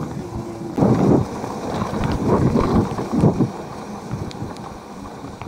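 Wind buffeting the microphone in irregular rumbling gusts, strongest in the first half and easing off in the last couple of seconds.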